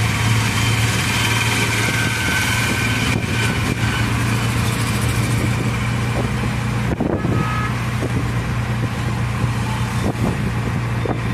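Auto-rickshaw engine running with a steady low drone while the vehicle drives through traffic, heard from inside the open cabin along with road and wind noise.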